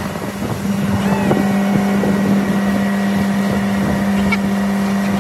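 Motorboat engine running steadily under way, a constant hum that grows louder about a second in and then holds, with wind on the microphone.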